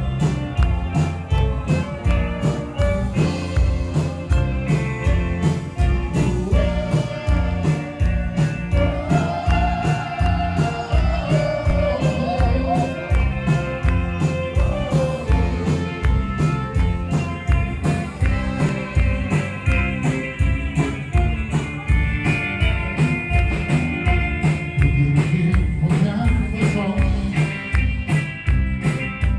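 Rock band music with a steady beat of drums and bass, and a guitar or vocal melody over it.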